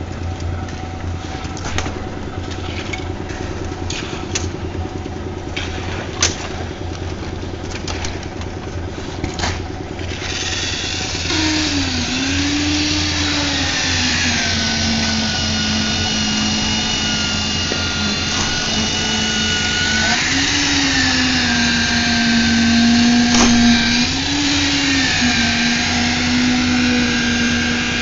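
A low steady hum with scattered clanks for the first ten seconds; then an electric concrete needle vibrator starts up, its motor whine dipping in pitch and recovering several times as it works in the wet slab concrete.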